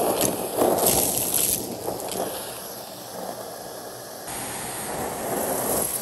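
Numatic Hetty canister vacuum cleaner running and sucking up scattered mess, with irregular bursts of rattling pickup over its steady motor noise, busiest in the first second and a half. The sound changes abruptly about four seconds in.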